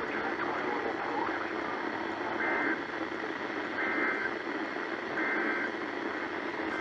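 Emergency Alert System SAME digital data bursts heard over a radio: short, buzzy two-tone bursts repeated about every 1.4 s, starting a couple of seconds in, over a steady hiss of radio static.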